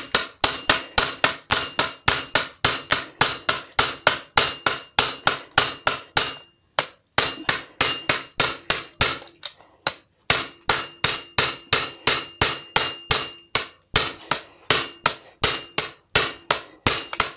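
Rapid hammer blows on a sheet-metal spacer held against the bent rim of a Honda Dio AF-62 scooter wheel, about three to four strikes a second, each with a short metallic ring. The blows come in runs, with two brief pauses: the dented rim edge is being knocked straight.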